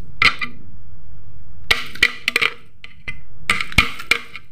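Soaked cashew nuts and poppy seeds tipped from a plastic mesh strainer into a glass blender jar: a few bursts of clinking and tapping against the glass, with a sharp knock near the end.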